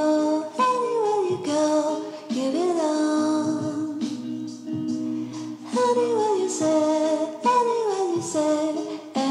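Background music: a melody of repeated falling, gliding phrases over a steady held low tone.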